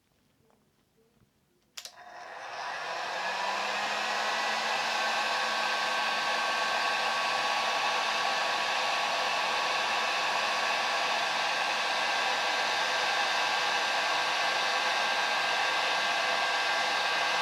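Electric heat gun clicked on about two seconds in. Its fan runs up to speed, then blows steadily with a faint whine, heating solder-sleeve wire connectors to melt the solder.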